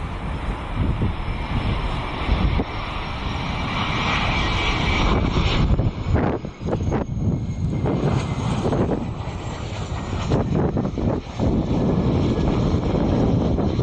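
Boeing 717 on final approach. Its two rear-mounted Rolls-Royce BR715 turbofans make a steady high whine over a low rumble, and gusts of wind buffet the microphone partway through.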